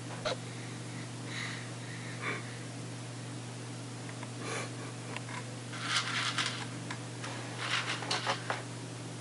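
Fingers rummaging through dry Cheerios in a plastic bowl: short dry rattles and clicks about six seconds in and again near the end, over a steady low hum.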